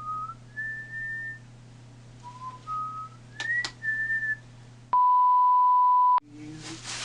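A person whistling a short tune of a few held notes that step upward, played twice. About five seconds in, a steady single-pitch beep lasting just over a second cuts in and replaces everything else, like a censor bleep.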